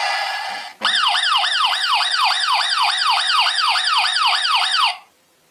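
Toy vehicle's electronic siren wailing in quick falling sweeps, about three and a half a second, then cutting off suddenly near the end. It comes in under a second in, after another electronic sound breaks off.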